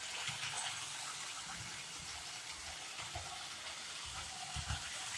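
Lionel 2026 O gauge locomotive and its cars running on three-rail tinplate track: a steady rushing hiss from the motor and wheels, with irregular low thuds from the rails.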